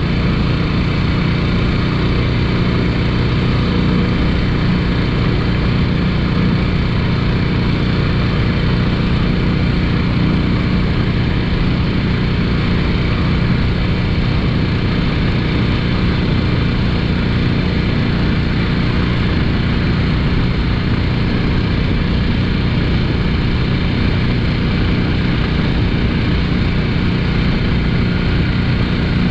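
13 hp Harbor Freight Predator single-cylinder engine on a Backwater Swomp Lite longtail mud motor, running steadily at speed while pushing a heavily loaded jon boat. The engine note holds one steady pitch and level throughout.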